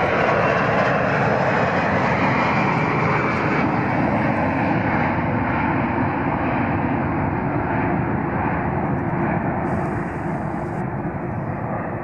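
Airbus A340's four jet engines at takeoff power as the airliner climbs out and moves away, the sound slowly fading and losing its high end.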